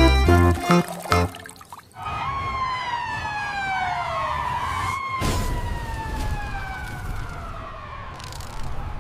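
Background music for about the first second, then a siren-like tone that falls slowly in pitch over several seconds, in two long downward sweeps over a low steady noise.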